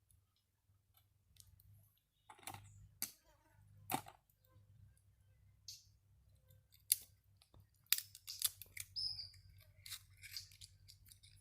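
Small open wood fire crackling under a grill, with irregular sharp snaps and clicks over a low steady hum, and a faint high chirp about nine seconds in.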